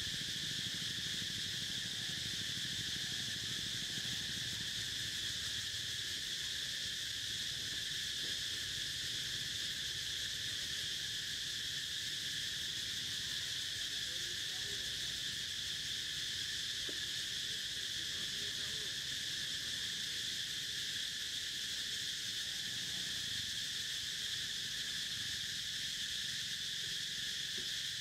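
Insect chorus: a steady, high-pitched drone.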